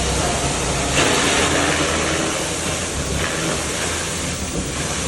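Steam pressure washer running, its spray hissing steadily against a concrete floor over the machine's low hum. The spray gets louder about a second in and eases back after a couple of seconds.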